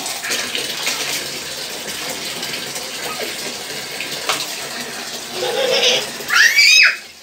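Bathwater splashing and sloshing in a plastic tub and bucket, with water scooped up by mug and poured over a child, plus a few sharp knocks. Near the end, a child gives a loud, high-pitched squeal.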